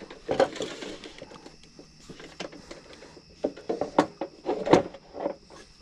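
Scattered knocks, clicks and clunks of metal parts as a Coleman propane camp grill is handled and set up, about seven separate strikes with the sharpest near the middle and toward the end.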